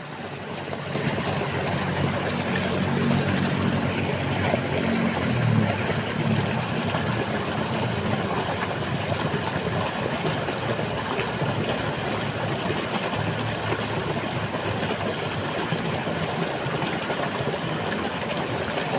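Steady rush of water flowing in a small ditch, with the low hum of an engine running during the first few seconds.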